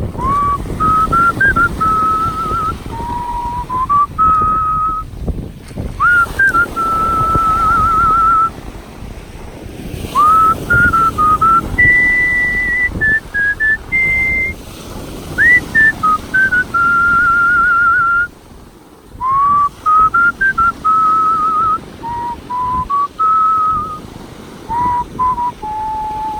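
A man whistling a solo melody in the art-whistling style: one clear, pure tone stepping and gliding between notes, with vibrato on the held notes and upward scoops into phrases. Two short breaks fall between phrases, about a third and two thirds of the way through.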